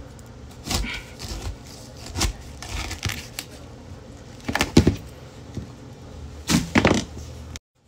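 Kitchen knife cutting through a whole pineapple's tough rind on a cutting board: a series of short crunchy cuts and knocks, about five, the last two close together, before the sound cuts off abruptly near the end.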